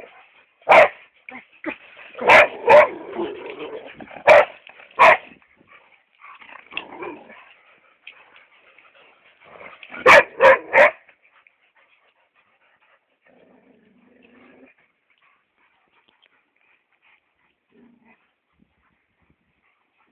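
Chocolate Labrador retriever barking: single barks every second or two over the first five seconds, then a quick run of three about ten seconds in, after which it goes mostly quiet.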